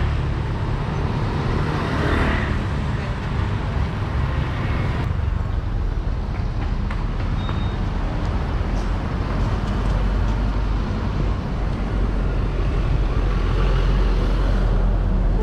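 Street traffic noise: a steady rumble of passing vehicles, with one louder swell about two seconds in.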